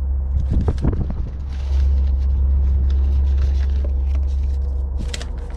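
A steady low rumble, like a nearby idling engine, under crinkling rustles of a plastic parts bag as new purge valve parts are handled, in short bursts about half a second in, around two seconds in and again near the end.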